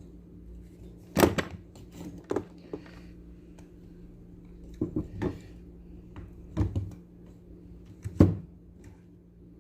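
Irregular knocks and clicks of a blender's parts being handled and refitted by hand, about seven in all, the sharpest about a second in and near the end, over a faint steady hum.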